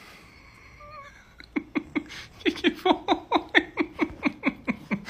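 A man laughing in a long, even run of short 'ha' sounds, each falling in pitch, about five a second, starting about a second and a half in.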